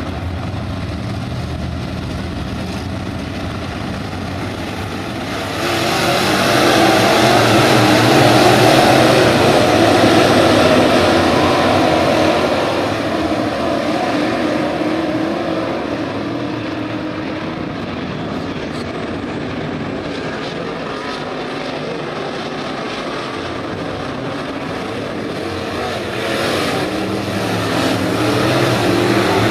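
A field of IMCA Modified dirt-track race cars' V8 engines running hard as the pack laps the track. The sound swells for several seconds from about five seconds in, and again near the end.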